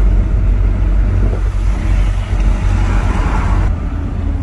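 Car on the move: a steady low rumble of engine and road noise. A rush of hiss builds about halfway through and stops sharply near the end.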